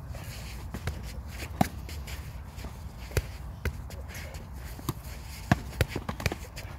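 Curved synthetic practice sabers clacking together in a sparring exchange, a series of irregular sharp knocks that come more often in the second half, with feet shuffling through dry leaves.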